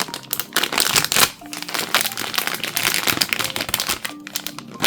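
Packaging crinkling and rustling in irregular crackles as a sealed blind-box figure bag is handled and opened.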